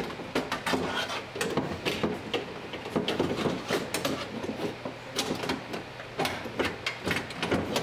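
Power window regulator and motor assembly being worked up into a car door's inner panel: irregular metallic clicks, knocks and scrapes as the rails, cables and motor bump against the door's sheet metal.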